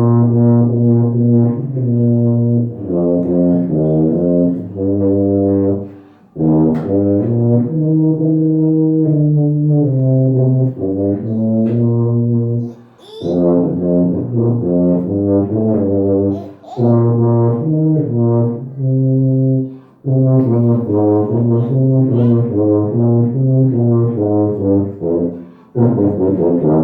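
American-made Dynasty tuba played solo: a melody of separate sustained notes in phrases, broken by short pauses for breath about every three to seven seconds.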